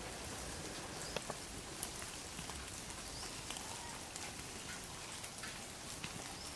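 Faint outdoor background noise: a steady hiss with scattered small ticks and crackles, and a few faint short chirps.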